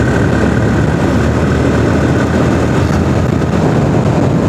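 Motorcycle engine running at road speed with steady wind rush, picked up by a phone mounted on the rider's helmet.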